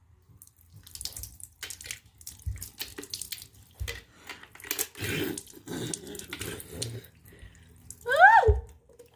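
Water splashing and dripping into a sink as handfuls of bottled water are splashed onto a face, in irregular bursts. Near the end there is a short, loud squeal that rises and falls in pitch.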